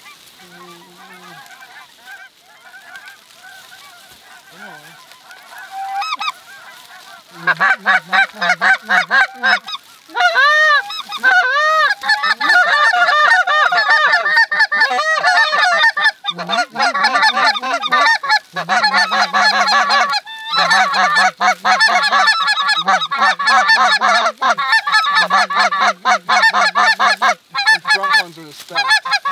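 A large flock of snow geese and greater white-fronted geese (specklebellies) calling in flight overhead: a few faint honks at first, swelling about seven seconds in into a loud, continuous din of many overlapping honks and yelps.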